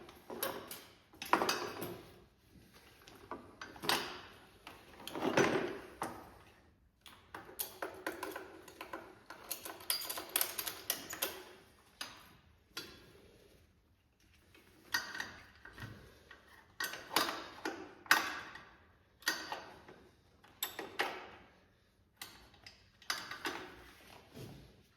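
Irregular handling sounds: knocks, clicks and short scrapes, some in quick clusters, as a snow bike ski, its spindle and a ratchet strap are moved and adjusted by hand.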